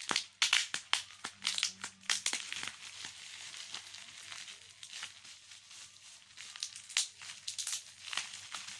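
Bubble wrap crinkling and crackling as it is pulled open and off a packed item, in dense bursts during the first two seconds or so and again near the end.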